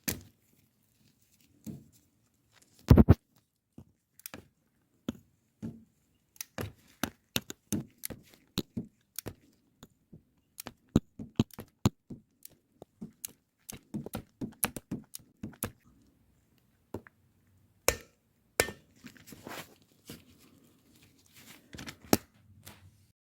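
Irregular clicks, taps and knocks of tools and parts being handled during a motorcycle oil change, at times several a second, with a louder knock about three seconds in and another later on.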